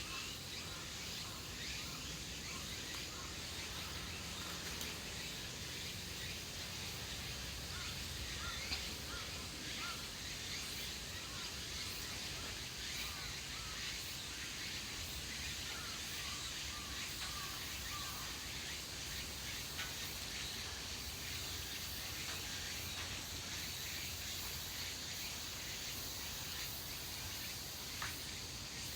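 Steady outdoor background with a high, even insect buzz and many small bird chirps through the first half. Two brief soft knocks: one about a third of the way in, one near the end.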